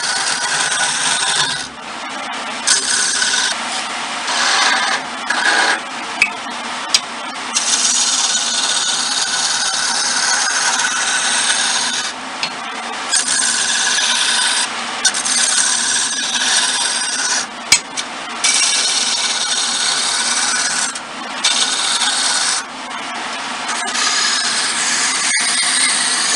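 Hand-held turning chisel cutting a spinning mahogany spindle on a wood lathe: a loud hiss of shavings being cut, in long runs broken by short pauses where the tool comes off the wood, with a few sharp clicks.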